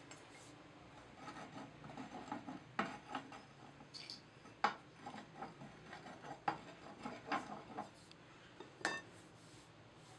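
Metal bar knocking and scraping as foundry moulding sand is rammed and packed on a steel bench: an irregular run of taps and scrapes, with a few sharper single knocks standing out.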